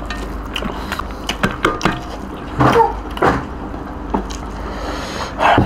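Close-up hand-eating sounds: fingers squishing and scraping rice on steel plates and chewing, with many short clicks and smacks over a steady low hum. About four seconds in, one of them gulps water from a glass.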